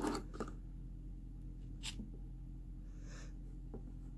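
Crayon drawing on paper: faint taps and scrapes, with a few sharp clicks near the start and just before two seconds, over a steady low hum.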